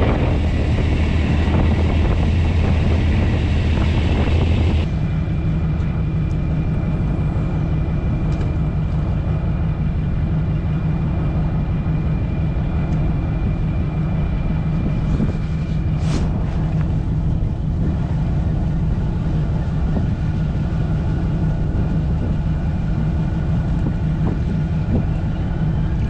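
Fishing boat's engine running steadily with a low hum and rushing wind and water noise. About five seconds in the sound changes abruptly and the hiss drops away, leaving a steadier engine hum.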